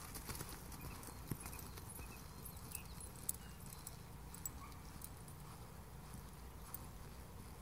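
Hoofbeats of a horse loping on sand arena footing.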